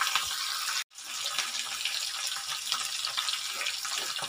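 Sliced onions and shallots sizzling in hot oil in an aluminium pot, a steady crackling hiss. The sound cuts out for a split second about a second in.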